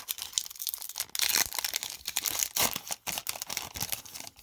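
A sealed pack of hockey trading cards being torn open, its wrapper crinkling and crackling in irregular bursts.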